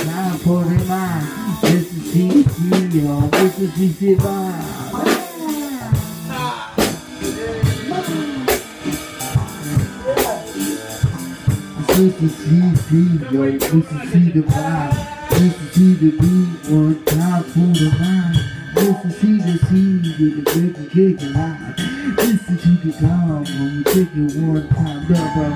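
Live band playing, heard close to the drum kit: kick drum and sharp drum and cymbal hits over a moving bass line. The sound thins briefly about five seconds in, then the full band comes back in.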